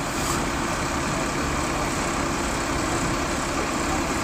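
Red double-decker bus engine idling close by with a steady low hum, over the general noise of city traffic.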